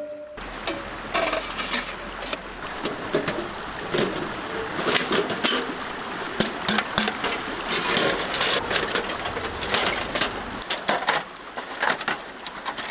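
Irregular metal clanks, scrapes and rattles as a small folding sheet-metal wood stove and its stovepipe sections are knocked about and taken apart.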